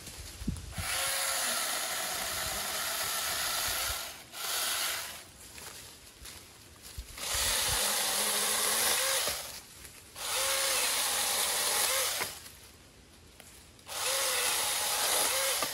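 A 21-volt brushless cordless mini chainsaw with a 6-inch bar cutting small limbs and brush, in five separate runs of one to three seconds each with short pauses between. Its high motor whine dips briefly in pitch now and then.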